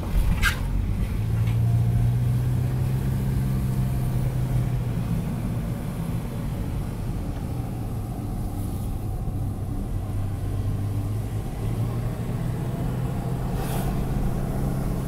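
Engine and road noise of a vehicle heard from inside its cab while driving slowly on a wet town road: a steady low hum, with a short click about half a second in.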